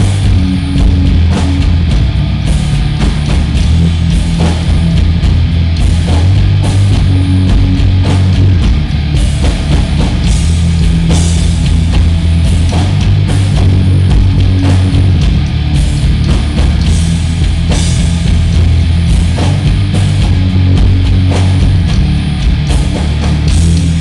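Heavy metal band playing live and very loud: heavily distorted electric guitar chugging over a full drum kit with a heavy low end, with steady drum hits throughout.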